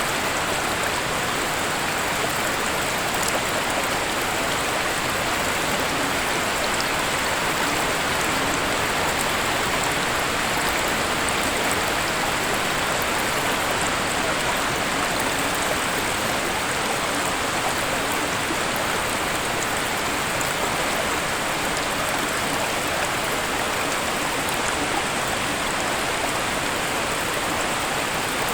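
Waterfall: a steady, even rush of falling water that holds the same level throughout.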